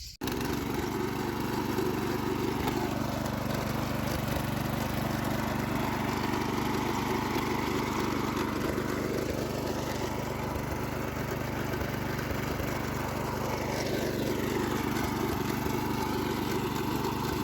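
Small engine of a walk-behind tiller running steadily while tilling garden soil, its pitch sagging and recovering twice.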